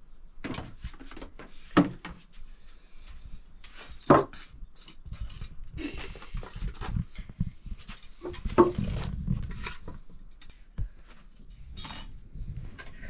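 Metal pots and utensils being handled: scattered clinks, scrapes and knocks, with three louder sharp clanks spread through.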